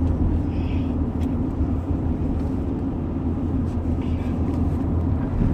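Steady low rumble of a car's engine and road noise, heard from inside the cabin while driving, with a couple of faint brief higher sounds over it.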